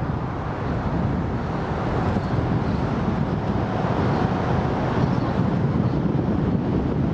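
Steady low rumble of wind buffeting the microphone over outdoor river noise, with a motorboat's engine running on the river.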